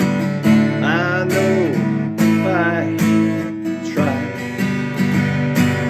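Acoustic guitar strumming steady chords, built on D, A and G triads. A few short gliding, wavering pitched sounds rise and fall over it.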